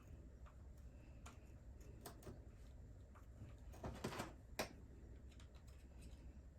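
Faint, scattered clicks of small plastic and metal RC-car parts and a hand tool being handled, with a short run of clicks about four seconds in and a sharper click just after.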